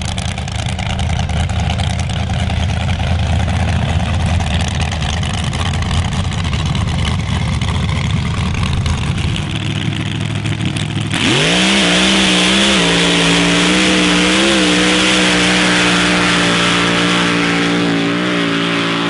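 V8 hill-climb truck engine running with a loud, low rumble at low revs. About eleven seconds in it revs up sharply to full throttle and holds a steady high engine note, with small pitch changes, as the truck climbs the sand slope.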